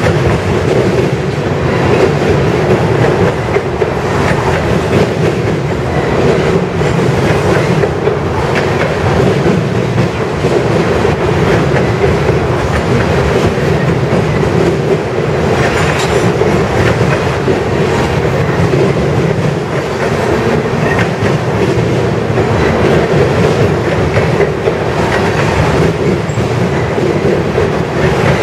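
Freight train of tank cars passing at close range: loud, steady sound of steel wheels running on the rails, with scattered clacks as the wheels cross rail joints.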